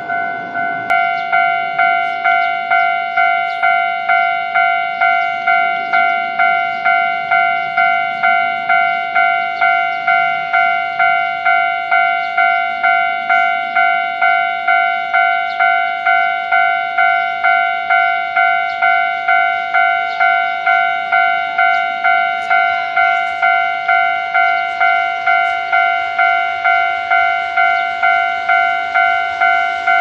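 Japanese railway level-crossing warning bell ringing its steady 'kan-kan', a clear electronic ding repeated at an even beat of roughly one and a half strikes a second, a little louder and fuller from about a second in. Beneath it a Hankyu 8300 series electric train runs faintly as it approaches the crossing.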